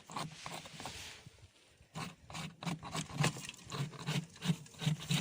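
Work on a wooden beehive: an irregular run of light knocks and scrapes, starting about two seconds in, several a second.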